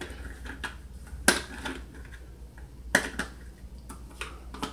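Irregular light clicks and taps from handling a jar of minced garlic and its plastic lid, with two sharper clicks about a second and three seconds in.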